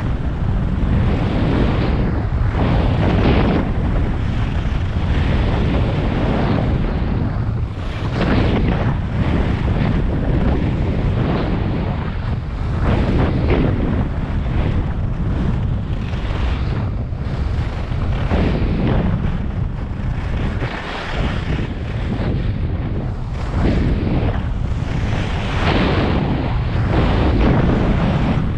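Wind buffeting the microphone of an action camera on a skier going down a piste, a steady low rumble, with the hiss of skis scraping over hard-packed snow swelling every few seconds as the skier turns.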